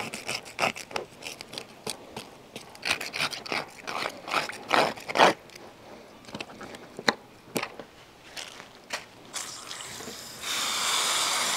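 A metal spoon scraping the inside of a gutted gar's body cavity in quick, repeated strokes. About ten seconds in, a garden hose spray nozzle comes on with a steady hiss of water spraying over the fish.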